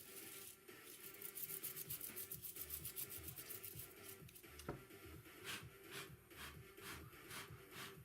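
A brush scrubbing the inside parts of a wireless keyboard. The strokes come fast and close together for the first few seconds, then slower at about two a second, with a single sharp click near the middle.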